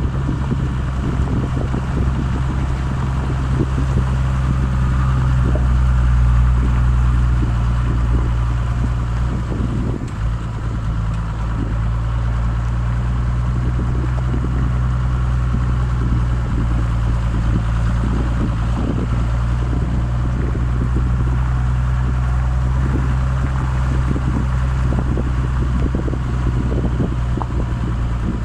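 Exhaust note of a Toyota Land Cruiser HJ61's 12H-T turbo-diesel inline-six, running steadily at an even engine speed, with a brief dip about ten seconds in.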